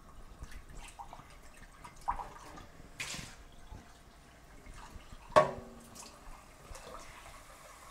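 Water from a kitchen tap splashing and dripping as a cup is rinsed in a stainless steel sink, with small clicks and knocks. There is a short splash about three seconds in, and a sharp knock with a brief ring a couple of seconds later, the loudest sound.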